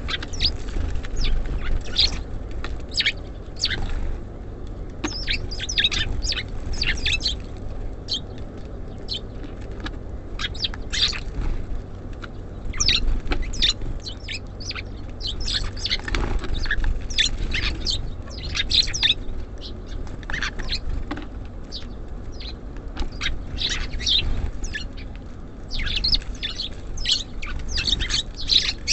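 Small songbirds at a feeder giving many short, high chirps one after another, over a steady low rumble.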